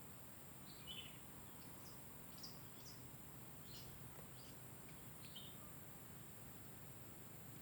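Quiet outdoor ambience with about ten short, high chirps from small birds in the first five seconds or so, over a faint steady high hiss.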